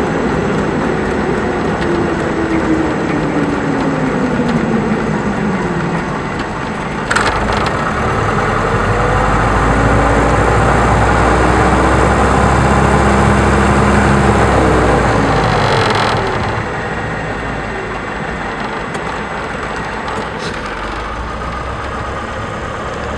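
Diamond Star single-engine light aircraft heard from inside the cabin during the landing rollout and taxi, its engine and propeller note falling in pitch over the first several seconds as it slows. A sharp click comes about seven seconds in, then the engine runs louder and steady with a deep rumble until about sixteen seconds, when it drops back to a lower, steady idle.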